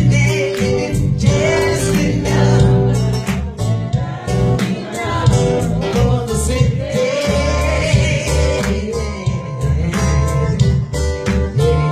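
Band playing a soul song with singing over a steady drum beat and bass line.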